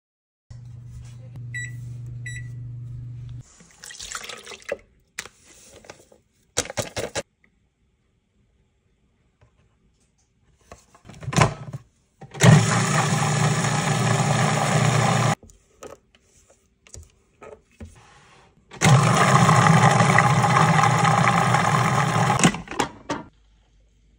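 Food processor blending pudding mix and milk, running twice: about three seconds, then after a pause about four seconds. Earlier, two short electronic beeps over a low hum, followed by clatter from handling kitchenware.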